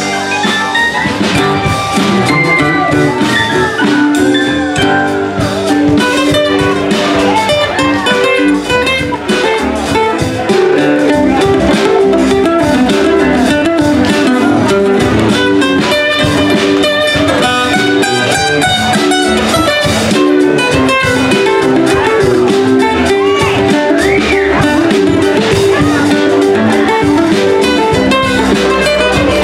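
Live band playing an instrumental passage with saxophone, guitars, keyboard and drum kit, no singing; the band gets louder about ten seconds in.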